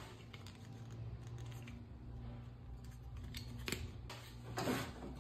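Faint, scattered plastic clicks as the slider on a Gerikt'N plastic margin-marker gauge is moved and locked into its one-millimetre detents.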